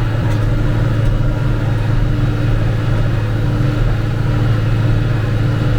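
Tractor engine running at a steady speed: a constant, even hum with no change in pitch.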